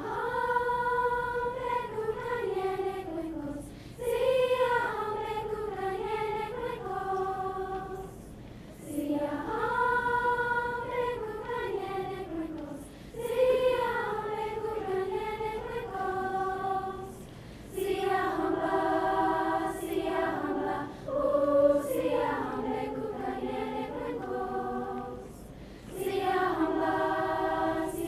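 A student choir singing a song in phrases of about three to four seconds, with short breaks for breath between them.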